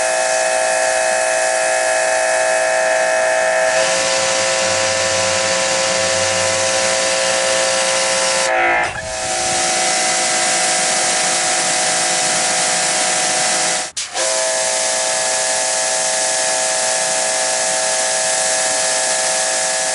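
Electric pressure washer spraying: the steady hiss of the high-pressure water jet with a steady whine from the running machine over it. It dips briefly about halfway through and breaks off for an instant about two-thirds of the way in.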